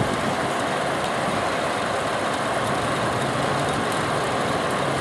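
Belt-driven exhaust fan running steadily on its newly installed quarter-horsepower electric motor, just started for the first time: an even rush of air with a faint low hum.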